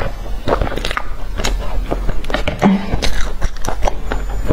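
Chewing a mouthful of soft filled bread close to the microphone: a run of short, irregular wet mouth clicks.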